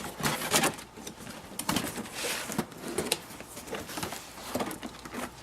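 Cardboard box tabs and flaps being pulled open and handled: scattered clicks, scrapes and a short rustle of cardboard and packing.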